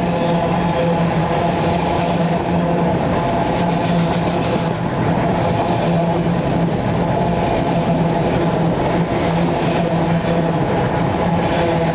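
CSX autorack freight train rolling past: a steady, unbroken noise of wheels on rail, with a steady low tone underneath.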